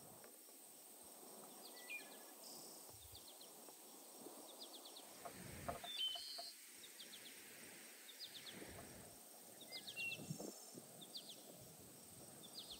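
Faint birdsong: short chirps come again and again over quiet outdoor ambience. A few soft knocks and rustles come from food being handled on the table.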